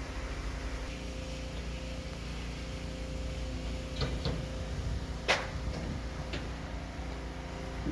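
A steady low mechanical hum with a few sharp knocks, the loudest about five seconds in.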